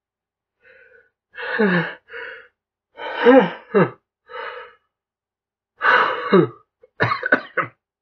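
A man sneezing into a tissue about three times in an allergy attack, each sneeze a loud burst falling in pitch with a breathy gasp before it, then a quick run of shorter sputtering bursts near the end.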